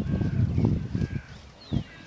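Small birds singing, with short whistled notes and one falling note near the end, over an irregular low rumble that comes and goes.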